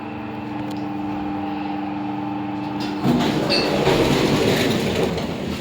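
Passenger lift at the ground floor: a steady hum for about three seconds, then a louder rumbling slide of the lift doors lasting about two and a half seconds.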